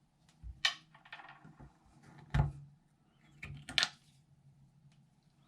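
Flathead screwdriver prying the cap off a Delta two-handle faucet handle: a brief scrape and three sharp clicks of hard plastic and metal, the loudest about halfway through.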